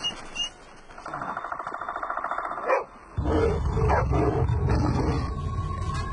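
Wolves snarling and growling: a fast rattling snarl about a second in, then louder, deeper growling with short cries from about three seconds in.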